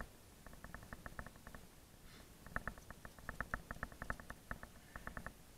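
Faint runs of rapid, evenly spaced clicking, about eight clicks a second, in four or five short bursts with quieter gaps between, from climbing rope and carabiners being handled at a harness.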